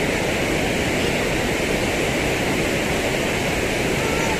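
Steady rushing of a large volume of water pouring over a small hydroelectric dam's spillway in flood after heavy rain.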